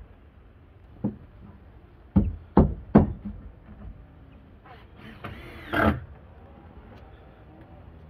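Sharp knocks on wooden stair formwork boards: one about a second in, then three in quick succession, followed by a brief scraping rattle near the six-second mark.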